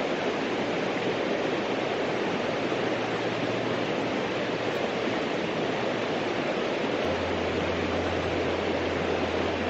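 Small creek running steadily, an even rushing of water. A low steady hum joins in about seven seconds in.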